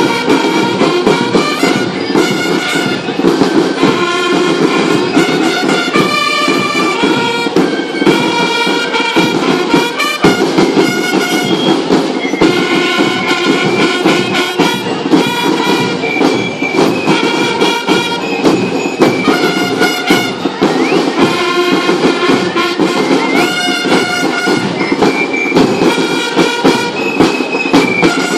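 A band playing held melody notes on brass or wind instruments over continuous, even drumming.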